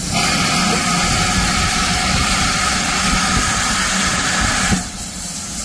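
Steam hissing loudly from a standing GWR Manor-class steam locomotive, No. 7828, starting abruptly and cutting off sharply near the end.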